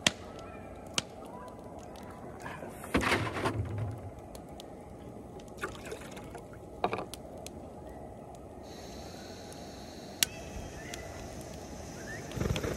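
Scattered clicks and knocks of camp cooking gear being handled, over a steady low rush from the gas camp stove heating a pot of water to the boil. A faint high hiss joins after about nine seconds.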